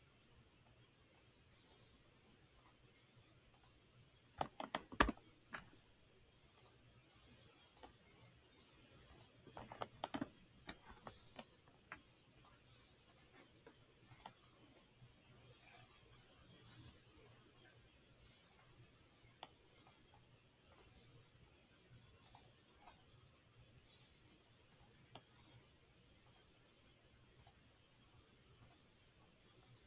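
Computer mouse clicks, single and sharp, every second or two, with two short busier clusters of clicks about five and ten seconds in. A faint steady low hum lies under them.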